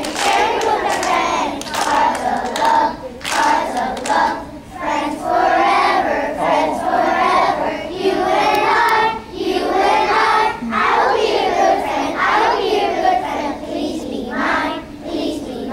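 A group of kindergarten children singing together, with hand clapping.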